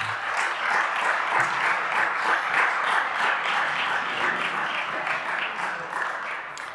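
Many people applauding together, a dense steady clapping that begins to die away near the end.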